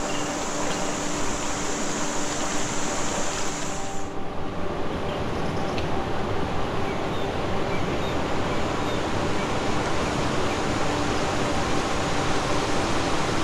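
Mountain stream rushing over rocks and a small cascade, a steady noise of running water. For about the first four seconds a high steady hiss lies over it, then stops suddenly.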